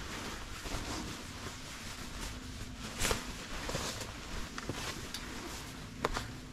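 Nylon-shelled down quilts rustling and swishing as they are lifted, folded and laid out over a sleeping pad, with a louder swish about three seconds in and a sharp click near the end.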